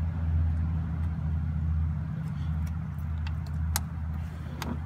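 A few faint, sharp clicks of needle-nose pliers on a hose clamp and metal in a car's engine bay, over a steady low hum.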